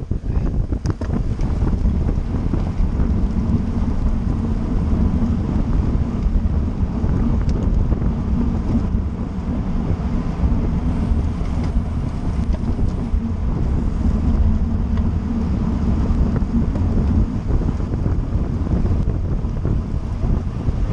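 Wind rushing and buffeting over the microphone of a camera on a moving bicycle at racing speed, a loud, steady low rumble.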